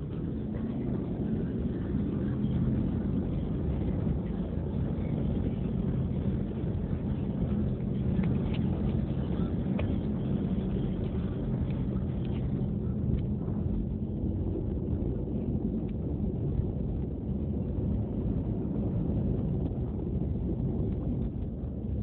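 Car engine and road noise heard from inside the cabin while driving, a steady low hum at an even engine speed.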